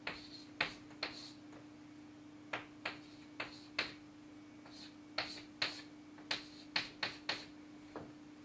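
Chalk tapping and clicking against a blackboard as figures are written: short, sharp taps at uneven intervals, with a brief pause about a second in, over a steady low hum.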